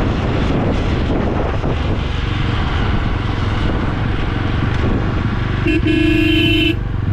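Jawa 42 motorcycle's single-cylinder engine running steadily under way, with road and wind noise. Near the end a horn gives a short toot and then one steady honk of about a second.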